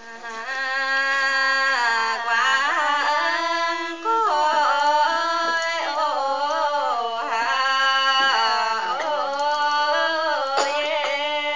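A woman singing a slow highland ethnic folk song in a high voice, holding long notes and sliding and bending between them in ornamented turns; only one voice is heard.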